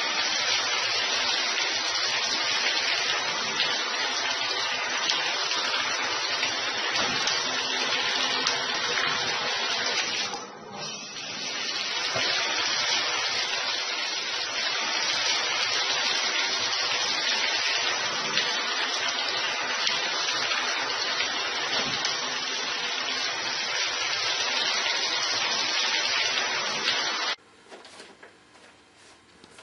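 Water spraying from a handheld shower head into a bathtub: a steady rushing hiss that drops away for about a second around ten seconds in, then cuts off suddenly near the end.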